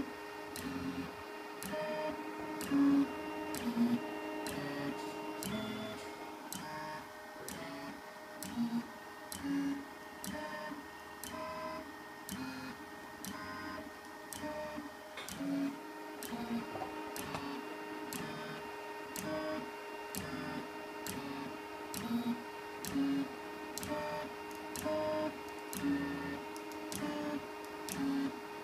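Delta 3D printer's stepper motors sounding short, pitched whines that change note with each move as the effector probes the bed during auto-calibration, with a sharp click about once a second. A steady hum runs underneath.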